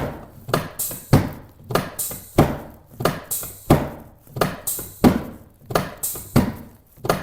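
A steady series of sharp thumps, about three every two seconds, each with a short ringing decay, from chiropractic treatment on a patient lying face down on the treatment table.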